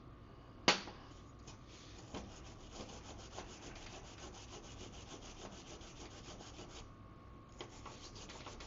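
Wire brush scrubbing a metal dirt-bike footrest clean, a quick scratchy rasping, with one sharp knock about a second in and a brief pause near the end.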